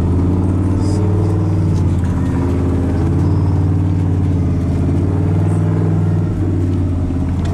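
A 4x4 truck's engine running steadily, heard from inside the cab while driving along a packed-snow trail: a low, even drone whose pitch wavers only slightly.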